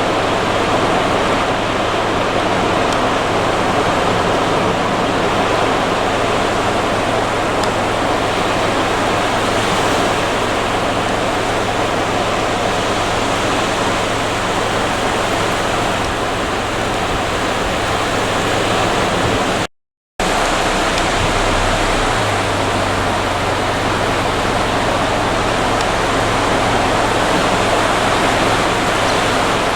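Steady wash of sea surf on a sandy beach, an even rushing noise without distinct breaks of waves. It cuts out completely for about half a second roughly two-thirds of the way through.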